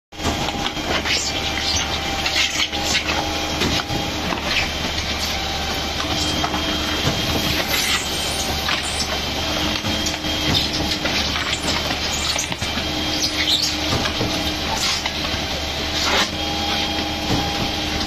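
Truck-mounted concrete mixer pump running: its paddles churning wet concrete in the mixing drum over a steady machine drone, with frequent sharp knocks and clatter. A tone rises out of the drone and drops away again every few seconds.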